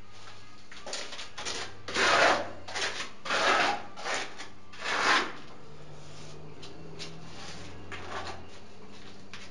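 A run of short scraping and rubbing strokes, about six of them in the first five seconds, the loudest around two to four seconds in. After that it is quieter, with a faint low hum.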